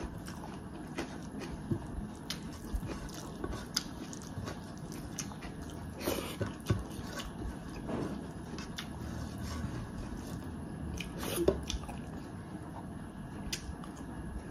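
A person eating a meal of rice, dal and fried pork: chewing with scattered small clicks and knocks from the plate, the loudest a sharp knock about eleven seconds in.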